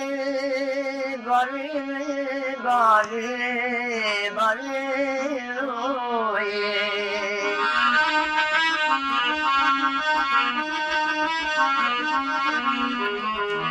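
Rajasthani devotional song (bhajan) between sung verses: a melody with bends and wavers over a steady low drone.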